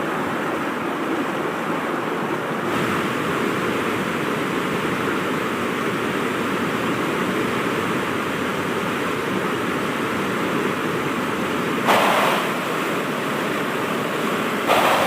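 Waterfall with a steady rush of falling water. Two brief louder surges come about twelve seconds in and near the end.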